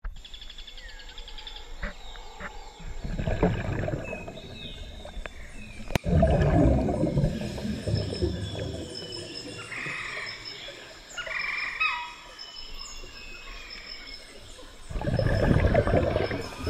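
Birds chirping and calling in many short, sliding notes, broken by bursts of low rumbling water noise from the camera moving at and under the water surface. A sharp click about six seconds in.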